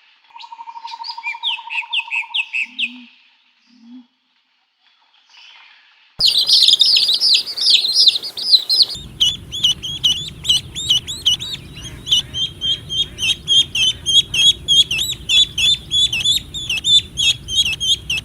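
Small birds chirping: a short burst of high chirps with a trill, then, from about six seconds in, a long run of rapid, repeated high chirps.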